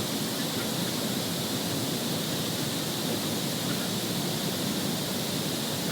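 Steady, even rushing noise with no distinct events, an outdoor wash of sound like wind or running water.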